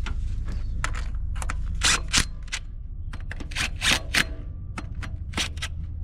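Cordless impact driver running in several short bursts, interspersed with sharp clicks and knocks, as the bolts of the intake mounting plate are run in.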